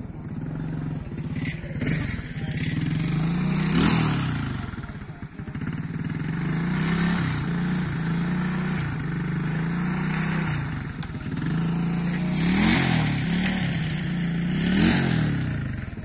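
An engine running steadily, revved up and back down about four seconds in and twice more near the end.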